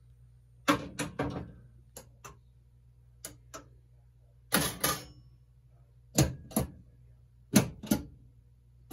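Relays and solenoid coils of a Gottlieb System 80-series pinball machine firing one after another in relay and solenoid test. A pair of sharp clacks comes about every second and a half, over a low hum. Each device responding as it is stepped through shows its driver is working.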